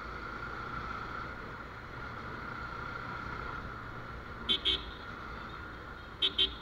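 Motorcycle running steadily at road speed, with a vehicle horn giving two quick toots about four and a half seconds in and two more near the end.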